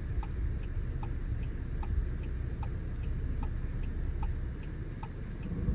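Steady tick-tock of a Geely Monjaro's turn-signal ticker, about two and a half ticks a second with alternating tick and tock, over a low cabin hum while the car parks itself under automatic park assist.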